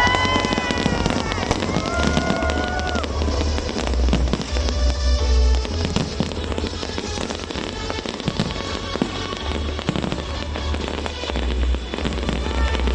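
New Year fireworks display: a dense run of bangs and crackles with deep booms beneath, over music in the first few seconds.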